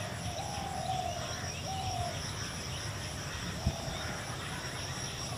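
Quiet background with a steady high chirring of crickets. A few faint wavering whistle-like tones come in the first two seconds and again about four seconds in.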